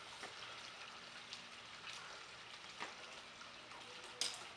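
Quiet outdoor background hiss with a few faint light clicks, and one sharper click about four seconds in.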